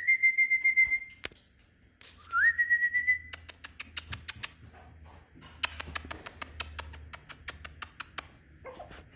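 A person whistles twice to call Pomeranian puppies, each a short note that slides up and holds a steady high pitch. Then comes a long run of quick, sharp clicks: the puppies' claws on the tile floor as they run.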